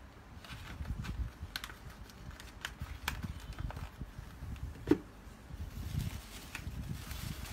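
Tissue paper crinkling and rustling as it is peeled off sneakers inside a cardboard shoebox, with light handling taps on the box. A single sharp knock about five seconds in.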